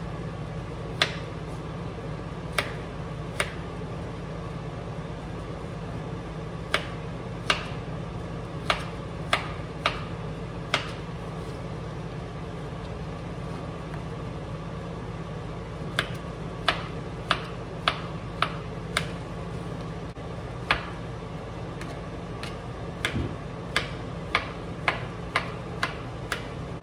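Kitchen knife chopping Mexican calabacitas (zucchini) into small cubes on a plastic cutting board: sharp, irregular taps, some single and some in quick runs, over a steady low hum.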